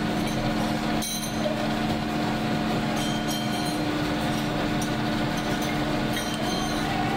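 Factory machinery running with a steady, even hum of several constant tones, with a few faint clicks at intervals.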